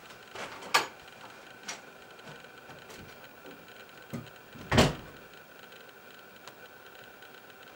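A few scattered knocks and clicks, the loudest a thump nearly five seconds in, over a faint steady high tone.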